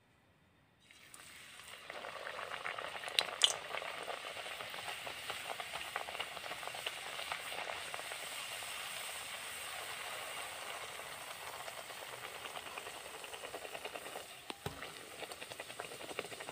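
A spinach puri deep-frying in hot oil in an aluminium kadhai: near silence for the first second, then steady sizzling and bubbling once the puri is in the oil. A couple of sharp clicks come about three seconds in, and a single knock near the end.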